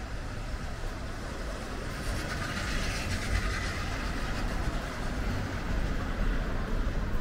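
Street traffic: a car passes close by, its tyre and engine noise swelling about two seconds in and then easing, over a steady low rumble of traffic.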